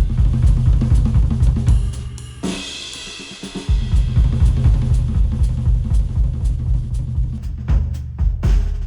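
Recorded music with a drum kit (kick, snare, hi-hat and cymbals) over heavy bass, reproduced through a planar-magnetic headphone and picked up by microphones. About two and a half seconds in, the beat drops out for about a second, then comes back in.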